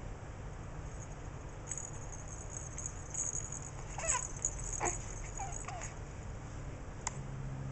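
A few short, high squeaks or whimpers from an animal, clustered about halfway through, then one brief sharp sound near the end, over a steady low hum.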